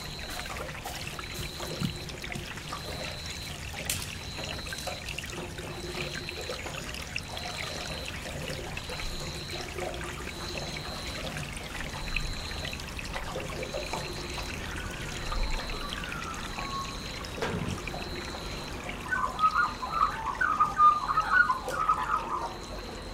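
Steady trickling, pouring water, with a short high tone repeating about every second and a quarter. About nineteen seconds in, a burst of quick, chattering high calls comes in, louder than the rest.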